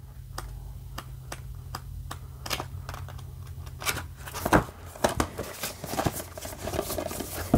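Pages of a paperback booklet flicked through by hand, a quick run of paper ticks and rustles. The rustles grow busier and louder in the second half, with a louder burst about four and a half seconds in.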